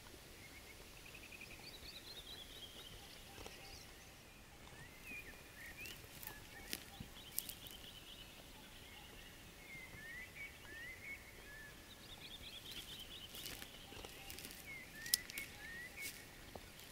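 Faint songbird song: a descending trilled phrase sung twice, near the start and again about two-thirds through, with short rising chirps between. A few sharp clicks break in about halfway and near the end.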